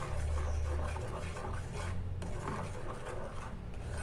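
Wooden spoon stirring thick chocolate syrup in a saucepan, rubbing and scraping against the pan's bottom and sides, over a steady low hum.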